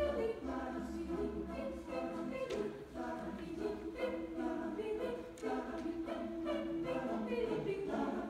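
Mixed chamber choir singing a cappella, holding full sustained chords that move from one to the next.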